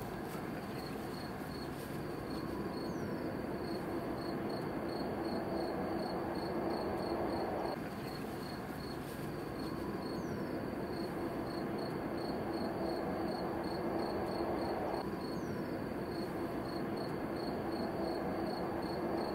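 An insect chirps steadily in a high, even pulse, about three chirps a second, over a constant outdoor rushing background.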